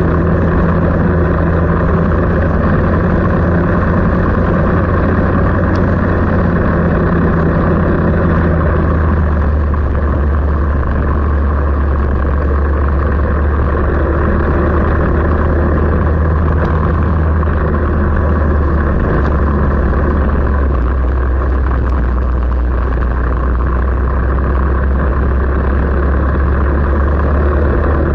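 A vehicle engine running at a steady, nearly constant speed, with a low hum whose pitch drops slightly twice.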